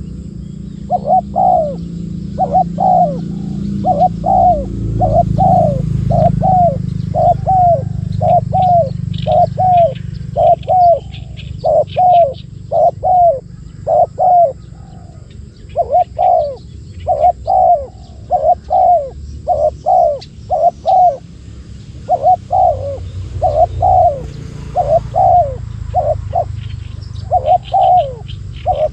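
Spotted doves cooing over and over in short, falling, throaty notes grouped in phrases, with a steady low rumble underneath and faint high chirps from small birds.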